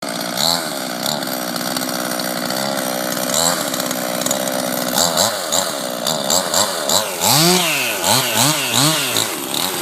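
Chainsaw engine idling and being revved again and again: a couple of single revs, then a string of quick blips, then several long rises and falls in pitch near the end.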